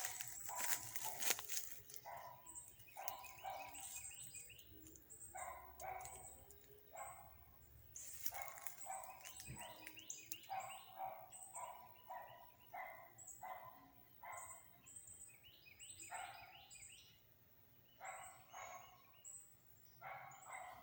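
Dogs barking repeatedly, faint, in short calls about one or two a second with brief pauses.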